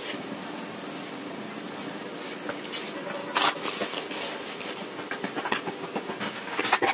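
Irregular wooden knocks and clatter of footsteps on log and pole steps, starting about three seconds in, over a steady background drone.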